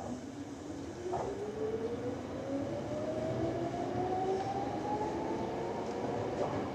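Chichibu Railway electric commuter train pulling away, its traction motors whining in a tone that rises steadily in pitch as it accelerates, over the rumble of the wheels on the rails.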